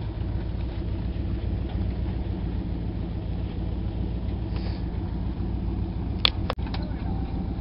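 Pickup truck engine idling steadily with a low rumble; a single sharp knock about six seconds in.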